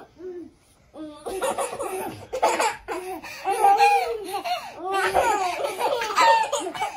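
Baby laughing hard in repeated belly-laugh bursts, starting about a second in.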